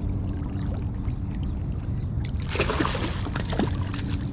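A hooked largemouth bass splashing and thrashing at the water's surface, loudest in a burst about two and a half seconds in, over a steady low hum.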